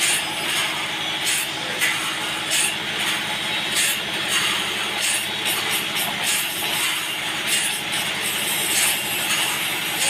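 Sawmill blade cutting lengthwise through a large mahogany log, running steadily, with a fast pulsing hum from the machine's motor underneath the cutting noise.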